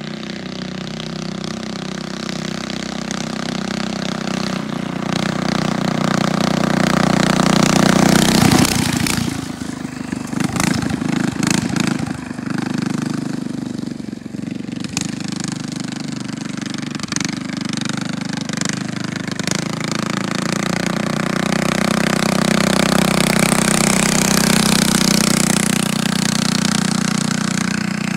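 Mini bike engine with a loud straight-pipe slash-cut exhaust, ridden along the street. It builds up over the first eight seconds or so and drops off suddenly, runs choppy with short throttle blips through the middle, then builds again near the end.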